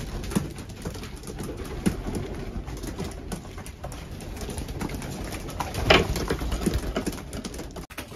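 Racing pigeons cooing in the loft, with scattered light taps and clicks throughout and one sharper, louder noise about six seconds in. The sound briefly cuts out near the end.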